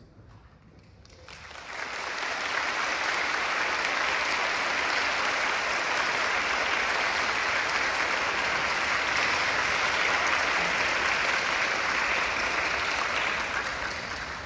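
Concert hall audience applauding at the end of a wind band performance: quiet for about the first second as the last notes die away, then applause swells in and holds steady, easing off slightly near the end.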